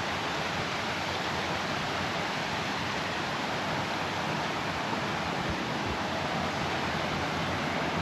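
Steady rush of flowing water from a brook.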